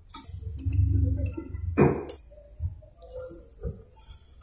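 Handling noise: a low rumble with knocks, a sharp clatter about two seconds in, then light clicks and clinks.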